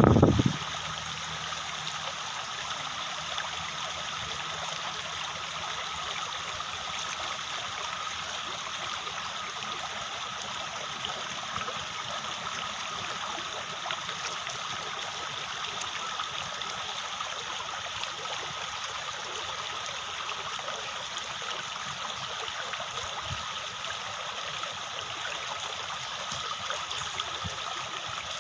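Water running steadily, like a small stream: an even, unbroken hiss.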